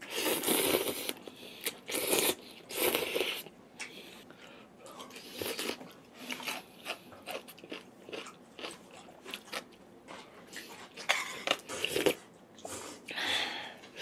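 Close-miked eating sounds: a person biting and chewing a meal of galbitang, beef short-rib soup with glass noodles and rice cake. There is a string of short wet smacks and clicks, with louder bursts near the start and again near the end.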